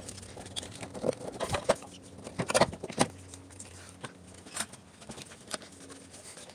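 Irregular knocks, clicks and rubbing of a car alternator being worked by hand down into an engine bay, knocking against the surrounding parts as it goes. The loudest knocks come about one and a half to three seconds in.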